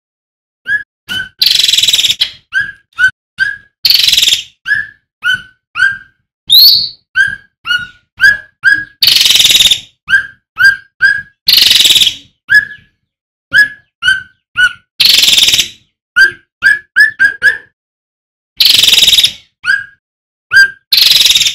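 Male cucak ranting bulbul singing loudly: a fast run of short, clear whistled notes, broken every few seconds by harsh, raspy bursts about a second long. The song starts just under a second in.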